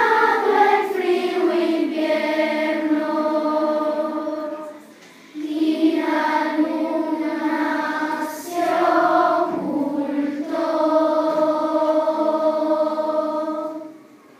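Children's choir singing long held notes in phrases, with a short pause for breath about five seconds in; the singing stops just before the end.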